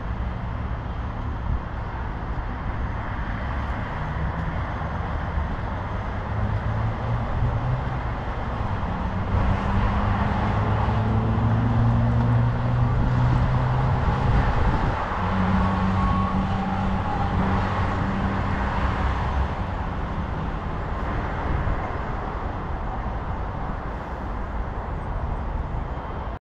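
City road traffic: a steady wash of passing vehicles. A vehicle's low engine hum builds about a third of the way in, is loudest for several seconds, then fades.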